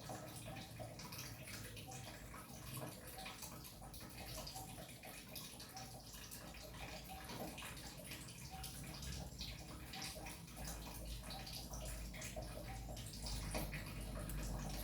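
Faint, scattered wet clicking and smacking of a kitten eating on its own, with a low hum coming in about ten seconds in.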